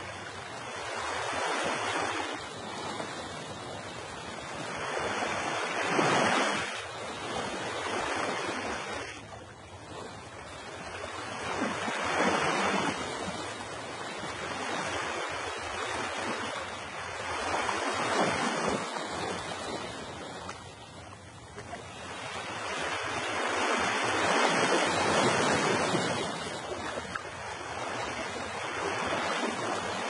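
Ocean surf breaking and washing up on a shore, each wave swelling and fading again about every six seconds.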